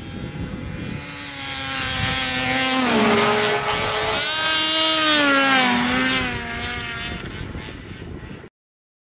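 Side-by-side UTV race car's engine revving hard on a dirt track, its pitch climbing, dipping, climbing again and then falling away. The sound cuts off abruptly near the end.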